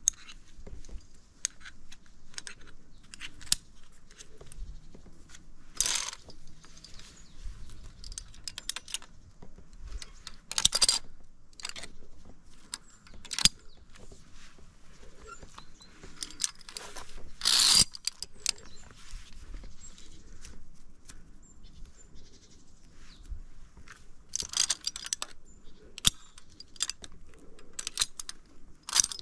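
Metal clicks and short scrapes of via ferrata lanyard carabiners being clipped, unclipped and slid along the steel safety cable, with loose gear jangling. They come irregularly, in small clusters. The longest and loudest scrape comes a little past halfway.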